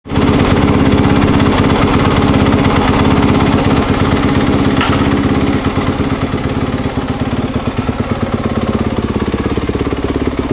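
Dirt bike engine running steadily, easing slightly about halfway through.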